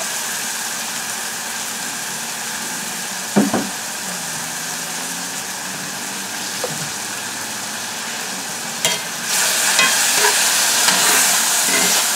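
Mushrooms, onions and sofrito sizzling steadily in a cast-iron skillet, with a single knock about three seconds in. About nine seconds in the sizzle grows louder as a spatula stirs and scrapes through the pan.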